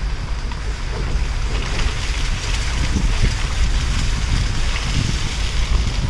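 Wind buffeting the phone's microphone, with a steady rushing hiss that gets louder about a second and a half in.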